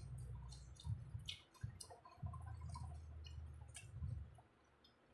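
Eating sounds: scattered wet clicks and squishes of biryani being handled and chewed, over a low rumble that comes and goes.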